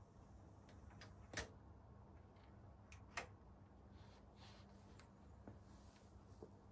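Two sharp clicks about two seconds apart as the power switches of a vintage 1980s Akai stereo amplifier and Akai digital tuner are pressed to switch them off, over a faint low hum.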